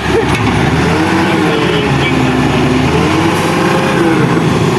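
A vehicle motor running steadily, with no clear rise or fall in speed.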